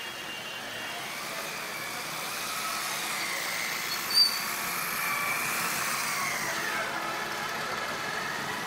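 Diesel locomotive engine running as the train approaches slowly, working hard enough to belch thick black smoke, with a whine that rises and falls in pitch. A brief high-pitched chirp about four seconds in.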